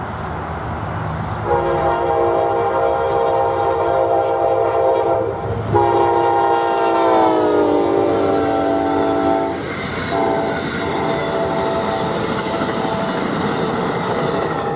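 Amtrak P42DC locomotive's five-chime K5LA air horn blowing three long blasts over the rumble of the passing train. The second blast drops in pitch partway through as the locomotive goes by.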